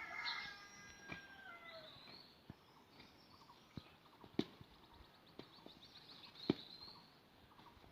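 Birds calling and chirping: a falling call at the start, then a fast trill of repeated notes a little past the middle. Two sharp clicks, about four and six and a half seconds in, stand out as the loudest sounds.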